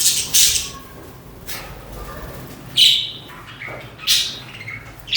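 Budgerigars in a colony chirping and squawking: a string of short, high-pitched calls, the loudest about three seconds in.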